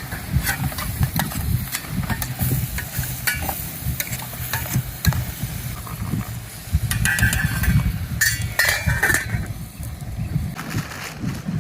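Shredded chicken of the woods mushroom frying in oil in a pot, sizzling, while a utensil stirs it with repeated clicks and scrapes against the pot, louder for a couple of seconds past the middle. A low rumble runs underneath.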